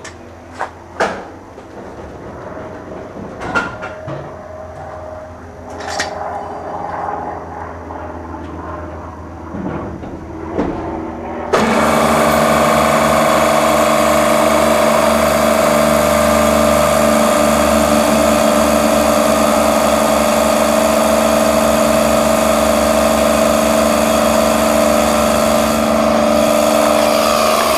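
A few clicks and knocks, then about a third of the way in the three-phase hermetic compressor from a container reefer unit starts suddenly on its first test run. It keeps running steadily with a hum of several even, pitched tones.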